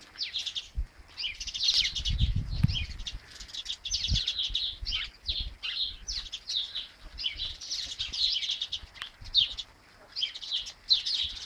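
Small songbirds chirping and twittering in a dense, continuous chatter. A brief low rumble comes about two seconds in.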